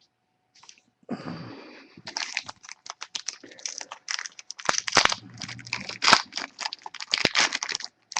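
Foil trading card pack wrapper being torn open and crinkled by hand: a dense run of crackling and tearing that starts about a second in.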